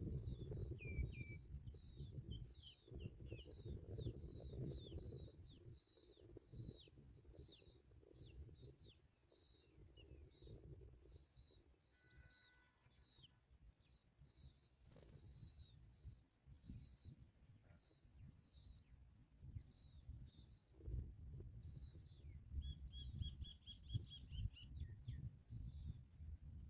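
Small birds chirping faintly in short, quickly repeated high notes, densely for the first half and more sparsely after, with a brief even trill near the end, over a low rumble.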